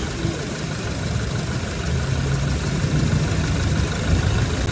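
Toyota Innova engine idling under the hood with the air-conditioning compressor running: a steady low hum that grows slightly louder about two seconds in.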